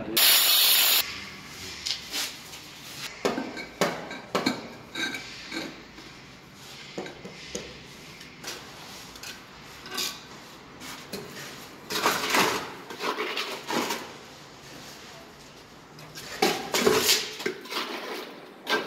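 Steel trowel scraping and spreading wet cement mortar over a marble slab and scooping mortar from a bucket: an irregular series of gritty scrapes and short knocks, with the busiest scraping about two-thirds of the way through and again near the end.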